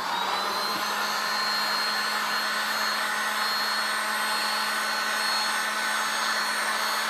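Electric hot-air blower switched on, spinning up over the first second, then running with a steady whine and rush of air while it warms the adhesive on the back of the mirror glass to re-stick it.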